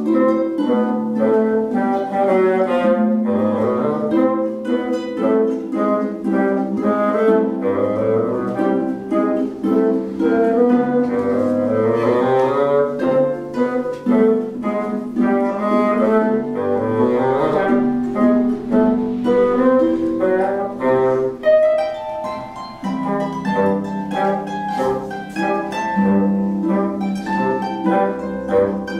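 Instrumental string music: a quick run of short, plucked-sounding notes moving up and down over held low bowed tones.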